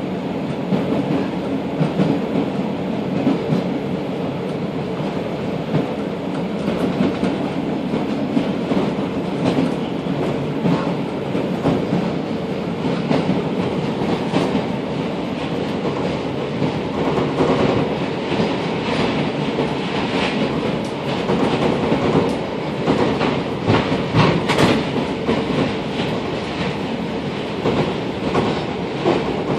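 Belgrade suburban train running, heard from inside the carriage: a steady rumble of wheels on rails with clicking from the wheels passing over the track, the clicks thickest from the middle of the stretch until near the end.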